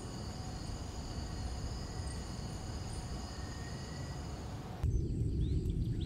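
Night insects such as crickets trilling steadily, several high-pitched tones at once, over a low rumble. About five seconds in the sound cuts abruptly to a louder low rumble, with the insects much fainter.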